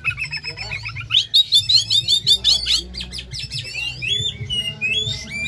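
Oriental magpie-robin singing: a fast run of rapid repeated chirps, then slower, varied whistled notes.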